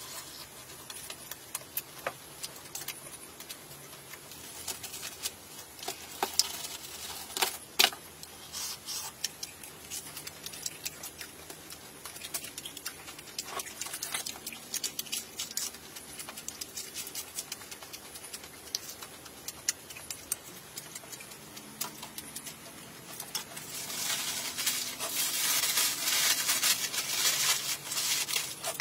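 Scattered small clicks and taps of knife and eating, then aluminium foil crinkling as it is folded around a parcel, louder and continuous for the last five seconds or so.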